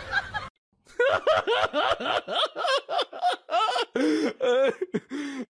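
Hearty laughter in quick repeated bursts, starting about a second in and getting lower in pitch near the end.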